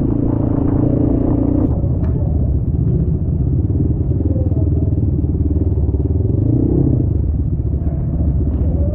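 Motorcycle engine running steadily, its note changing about two seconds in.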